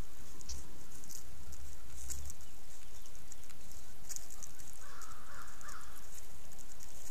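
Outdoor trail-camera sound: a steady hiss with low rumbles in the first two seconds, and one short call about five seconds in.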